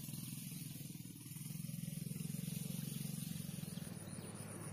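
A small engine running nearby, a low rapidly pulsing rumble that grows louder about a second in and eases off after about three seconds.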